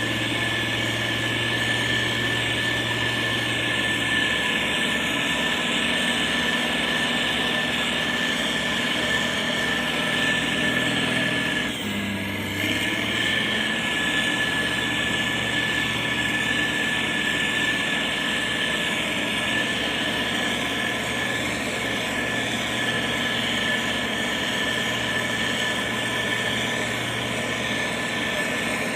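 Motor grader's diesel engine running steadily with a constant high whine over it; the engine note briefly shifts about twelve seconds in.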